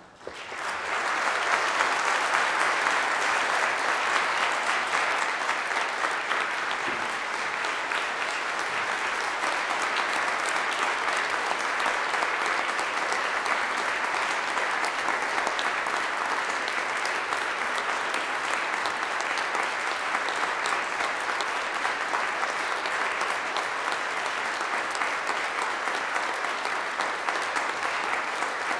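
Church congregation applauding. The clapping swells up within the first second or so, then holds steady and sustained.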